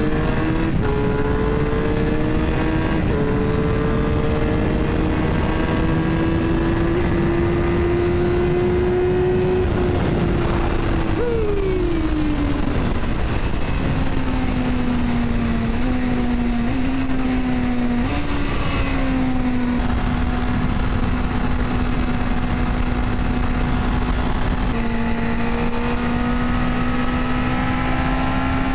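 Suzuki GSX-R sport bike engine heard from the rider's seat while riding. Its note climbs slowly, falls sharply about eleven seconds in as the bike slows, jumps a few times in quick steps with gear changes, then holds steady at cruise. Heavy wind rush runs underneath.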